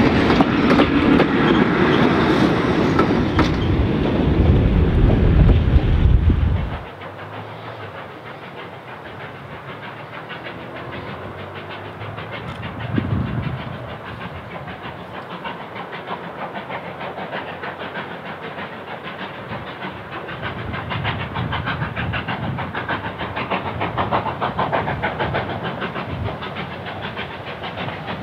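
Heritage passenger carriages rolling past close by, wheels rumbling and clicking over the rail joints, cutting off about seven seconds in. After that, the distant exhaust of Victorian Railways J class 2-8-0 steam locomotive J549 working upgrade, growing gradually louder as it approaches.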